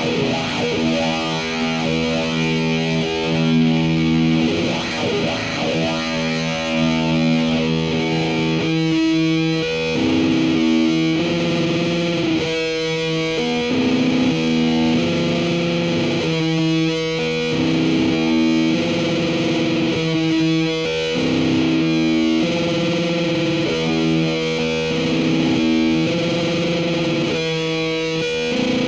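Distorted electric guitar through effects, drenched in reverb, playing long held chords that change every few seconds, with short breaks between some of them.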